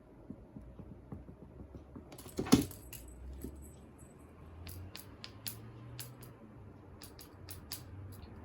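One sharp knock about two and a half seconds in, then a run of light, sharp clicks and jingling taps of small hard objects.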